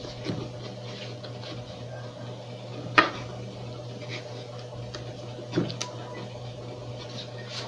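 Handling noise from a small plastic USB/Bluetooth MP3 player module as its wire connector is plugged in and it is fitted into a wooden speaker box. There is one sharp click about three seconds in, a lighter tap later, and faint ticks, all over a steady low hum.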